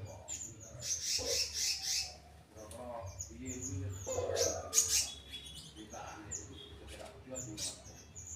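Slendang biru birds in a small aviary chirping, a fast string of short high chirps, each dropping in pitch. A sharp, louder noise stands out about five seconds in, over a low steady hum.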